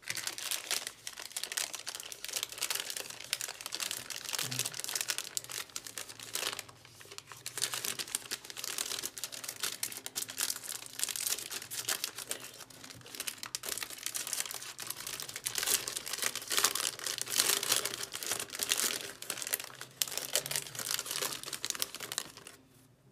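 Plastic wrapper of a chocolate ice cream bar crinkling and crackling as it is handled, torn open and peeled back off the bar. The crinkling is near constant, loudest past the middle, and stops just before the end.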